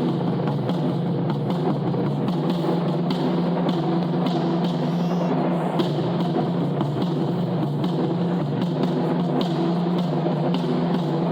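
Japanese taiko drums playing music, with sharp strokes in a steady rhythm, some of them crisp wooden clicks, over a steady pitched backing.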